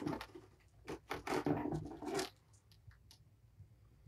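Scratching and scraping as a kitten is handled onto a plastic scale tray, its claws and the handling rustling for about two seconds. After that, only a few faint ticks.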